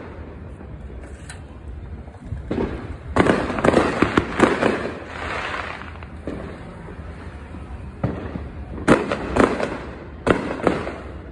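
Fireworks going off in bursts of sharp cracks and bangs: a run of them from about two and a half seconds in to about five, then two shorter volleys near the end.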